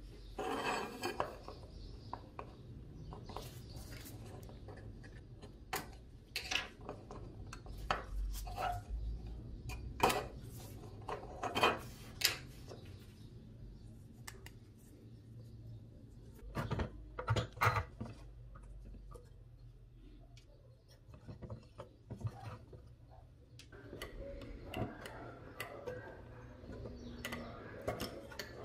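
Small parts of a Peterbilt 359 model truck clicking and clinking as they are handled and set down on a tabletop: irregular taps and knocks, some louder than others.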